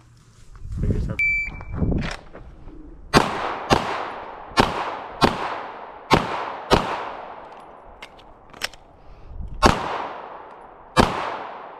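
Shot-timer beep, then a firearm fired in quick pairs: three pairs of shots a little over a second apart. After a pause with a couple of small metallic clicks, as in a reload, two more shots follow near the end.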